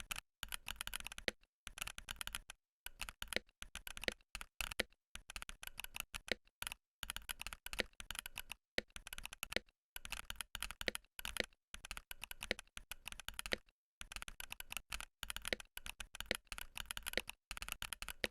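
Varmilo Minilo VXB67 mechanical keyboard with Varmilo EC Sakura v2 electro-capacitive switches, an aluminium plate and double-shot ABS keycaps, typed on quickly. Its lubed stabilizers and foam dampen the keystrokes. The keystrokes come in rapid runs of clicks, about a second at a time, with brief pauses between.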